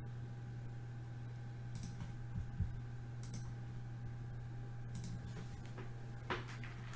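Three light, sharp clicks about a second and a half apart over a steady low electrical hum, with a couple of soft thumps.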